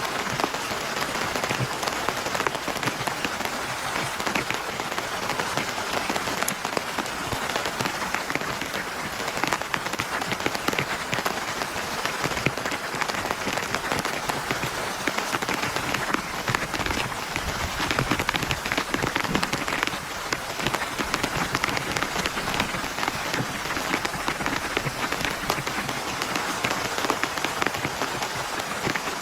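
Heavy rain falling steadily, a dense hiss of many individual drops hitting a surface.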